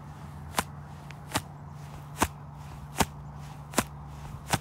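Sharp slaps repeating at an even pace, about one every 0.8 seconds, over a steady low hum.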